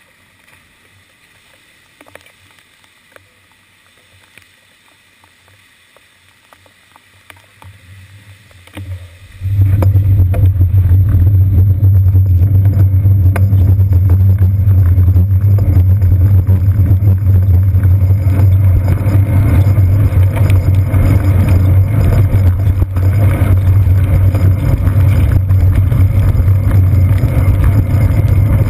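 Faint, muffled street sound while the bicycle is stopped, then about nine seconds in a sudden loud, steady low rumble as it sets off: road vibration and wind picked up by a seat-post-mounted GoPro Hero 2 in its waterproof housing while riding over wet pavement.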